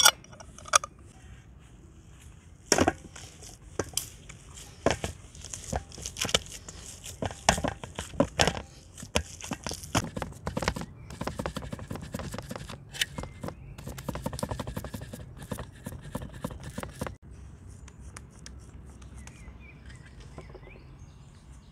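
Hands pressing and patting raw minced lamb flat on a paper-lined metal tray: a run of sharp pats, squishes and paper crinkles that stops abruptly about seventeen seconds in. A spice jar lid clicks once right at the start.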